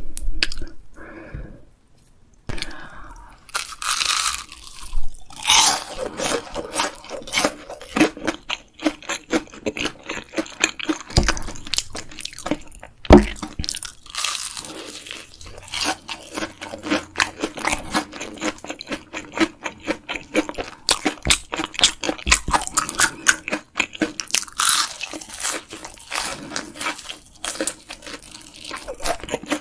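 Close, crisp crunching and chewing of battered fried shrimp, bite after bite, with a sharp thump about halfway through.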